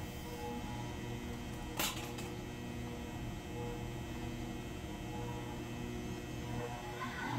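Wood lathe running with a large maple blank spinning and no tool on the wood: a steady low hum. A sharp click comes about two seconds in, and a short scratchy noise near the end.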